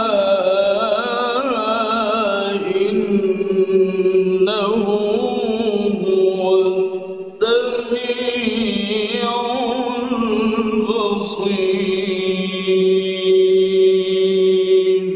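A man reciting the Qur'an in the melodic, ornamented mujawwad style, drawing out long held notes with wavering pitch. There is a short break about seven seconds in before the chant resumes.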